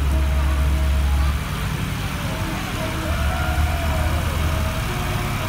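An older green John Deere tractor's engine running at low speed with a low, steady hum as it drives slowly along, with voices from the people walking alongside.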